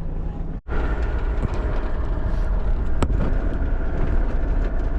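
Campervan on the move: steady engine and road rumble. The sound drops out for an instant about half a second in, and there is a single sharp click about three seconds in.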